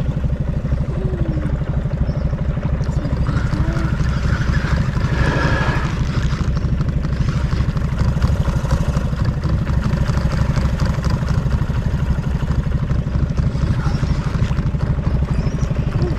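A small boat's outboard motor running steadily, a low even pulsing hum.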